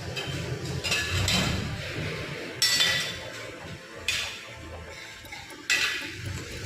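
Sharp metallic clinks, three strikes about a second and a half apart, each ringing briefly, as metal tools or parts are knocked together during work on a tractor's brakes.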